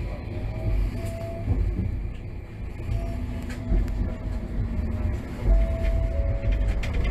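Kagoshima City streetcar running on its rails, heard from inside the car: a steady low rumble of wheels and running gear with a faint motor whine and a few light clicks.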